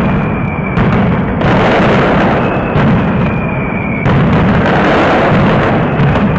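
Daytime firework barrage: firecrackers and aerial shells bursting overhead in a rapid, unbroken string of loud bangs, with a few short whistles over the top.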